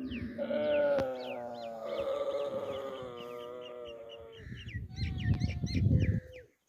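Camels calling in long, drawn-out bleating moans, then a loud, rough grunting rumble about four and a half seconds in. Small birds chirp repeatedly above the calls.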